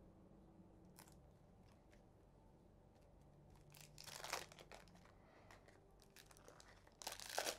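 Wrapping being torn and crinkled off a deck of game cards: a short burst of crinkling about four seconds in and a louder one near the end, quiet in between.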